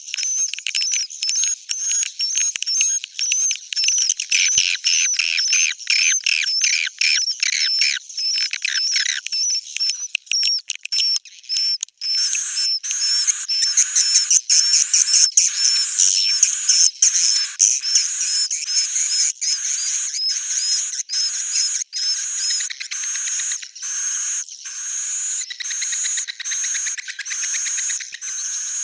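Edible-nest swiftlet roosting-call ('suara inap') recording: rapid high-pitched chirps and twitters. The chirps are dense and run together at first, then settle about halfway into an even pulse of about two a second. It is the lure sound played in swiftlet houses to draw the birds in to roost and nest.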